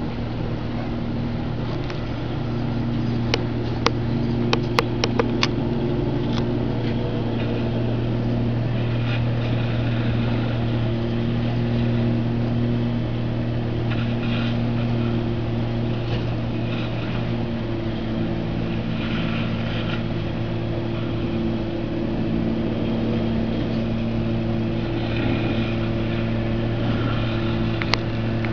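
Boat engine running steadily with an even low drone. A few sharp clicks come about three to five seconds in and again near the end.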